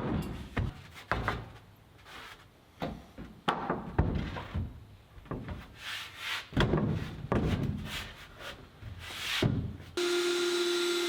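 Plywood sheets being handled and fitted against wooden framing: scattered knocks, thunks and rubbing of wood on wood. Near the end a cordless drill starts and runs steadily, driving screws.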